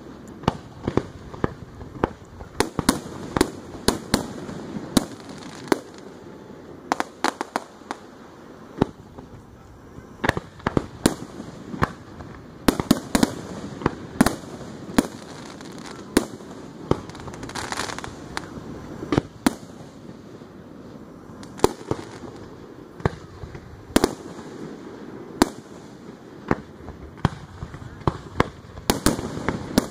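Aerial firework shells bursting in a long, irregular string of sharp bangs, at times several a second, with a brief hiss about halfway through.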